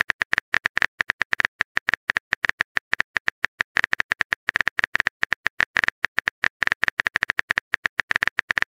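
Simulated phone keyboard keystroke clicks from a texting-story animation, as a message is typed letter by letter: a rapid, slightly uneven run of short sharp clicks, roughly ten a second.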